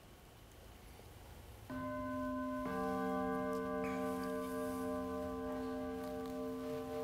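Organ sounding held notes: a note comes in about two seconds in, a lower note joins a second later, and both are held steady as a sustained chord, the opening of a communion hymn.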